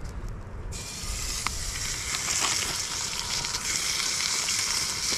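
Raw hamburger patty laid in a hot stainless steel pan, sizzling steadily as it starts to fry; the sizzle starts suddenly just under a second in.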